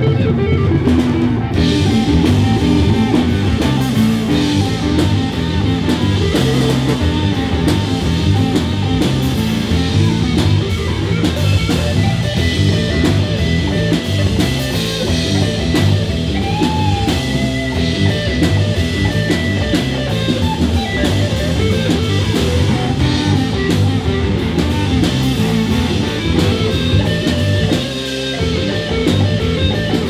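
Rock music with drum kit and guitar.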